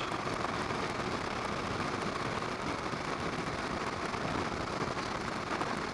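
Steady wind rush and road noise from a 2016 Harley-Davidson Low Rider S cruising at road speed, with the wind buffeting the bike-mounted camera's microphone.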